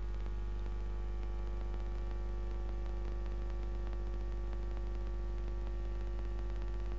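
Steady electrical mains hum with a faint hiss, unchanging throughout; no other sound.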